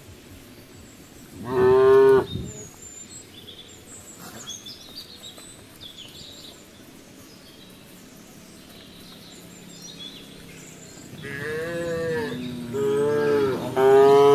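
Cattle mooing: one loud moo about a second and a half in, then three moos in quick succession near the end.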